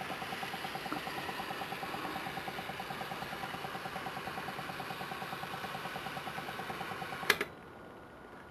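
Home-built hydroxy (oxyhydrogen) electrolysis cell with double-helix stainless steel electrodes in KOH solution, making gas and bubbling with a fast, steady pulsing. About seven seconds in there is one sharp click, and the bubbling sound drops away.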